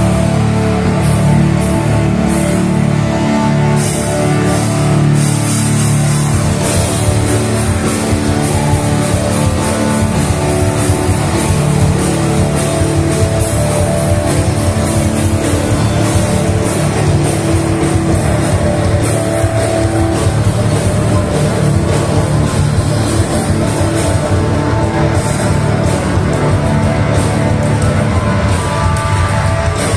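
Live rock band playing loud, with electric guitars and drums.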